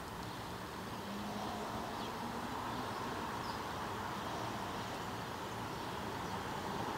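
Steady background noise with a faint hum and no distinct events.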